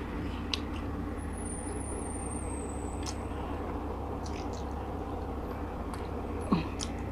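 Faint chewing and mouth clicks of someone eating steamed fish, over a steady low hum. A short sharp knock sounds about six and a half seconds in.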